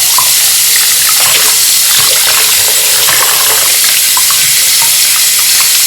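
Water running steadily from a bathroom tap while a wig is rinsed under it.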